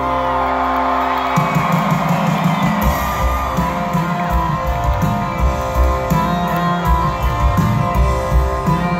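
Live country-rock band playing electric guitars, bass and drums: held guitar chords, then about a second and a half in the bass and drums come in with a steady beat. The audience whoops and cheers over the music.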